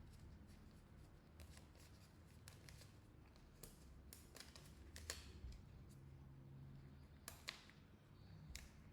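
Quiet hand-handling noises: faint scattered clicks and rustles of adhesive tape and the phone being worked, with a couple of slightly sharper clicks about five and seven and a half seconds in.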